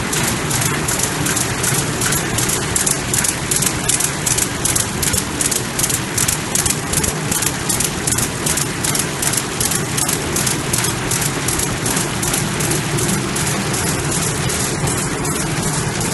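Paper-bag bottom pasting machine running, with a fast, even clatter of several strokes a second over a steady mechanical hiss.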